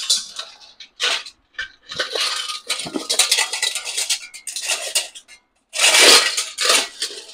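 Brass chains rattling and clinking against a brass lotus-shaped hanging piece as it is handled and set up, in irregular bursts, loudest about six seconds in.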